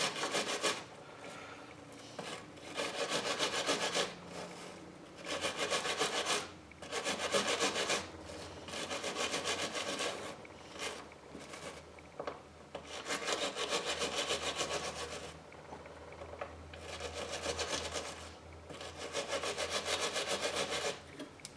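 Small hand wire brush scrubbing rust off a coin: rapid back-and-forth scraping strokes in bouts of a second or two, with short pauses between.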